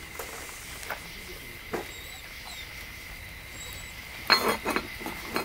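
A wooden spoon stirring and scraping inside a cast iron pot: a few light clicks at first, then a quick run of louder scrapes and knocks against the pot's walls about four seconds in.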